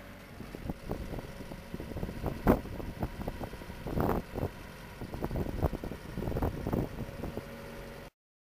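Hybrid sonic/rotary drilling rig running with a steady mechanical hum, with irregular metallic knocks and clanks, the sharpest about two and a half seconds in. The sound cuts off abruptly about eight seconds in.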